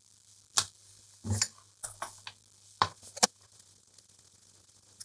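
Soldering tools clicking and tapping against a tube radio's crowded metal chassis while a capacitor is being desoldered: a handful of light, scattered clicks over about three seconds, over a faint steady low hum.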